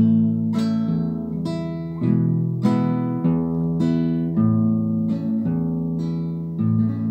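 Acoustic guitar playing a slow instrumental introduction: plucked single notes, each ringing out and fading, over bass notes that change every second or so.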